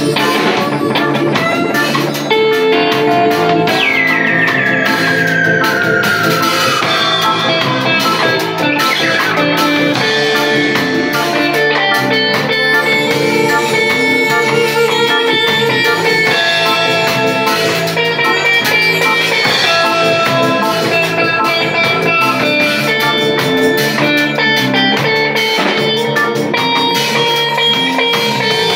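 Live band playing loudly: electric guitar, bass guitar and drum kit. About four seconds in, a high note slides steadily down in pitch over roughly four seconds.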